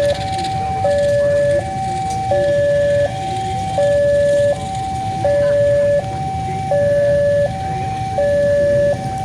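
Railway level-crossing warning alarm sounding a two-tone electronic signal, switching evenly between a high and a low pitch about every three quarters of a second, over a low rumble.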